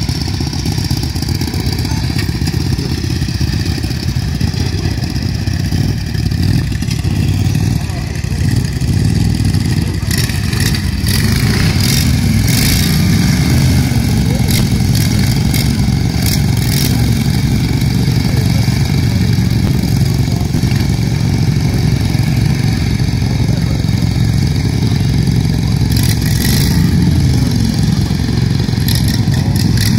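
Several racing ride-on lawn mower engines running steadily while the mowers stand at the start, with people talking over them.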